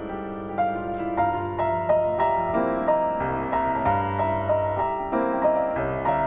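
Piano playing a slow melody, about two notes a second, over held bass notes.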